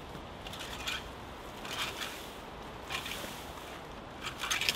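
Dry reed and straw litter rustling in short scratchy strokes about once a second, the last stroke the loudest, over a steady outdoor hiss.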